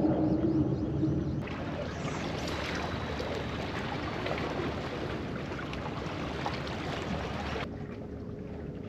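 Steady rushing noise of wind and sea water at a rocky shoreline, starting suddenly about a second and a half in and cutting off near the end.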